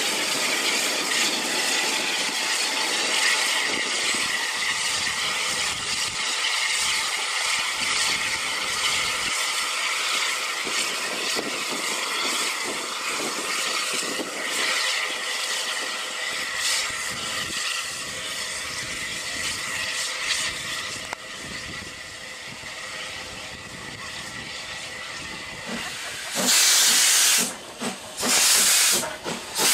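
Steam locomotive standing at the platform with a steady hiss of escaping steam. Near the end come several loud, separate blasts of steam, each about a second long, from the cylinder drain cocks of the ex-Yugoslav class 62 0-6-0 tank engine 30075.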